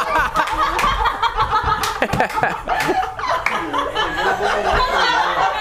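A group of teenage students laughing and shouting together, with a few sharp knocks about two to three seconds in.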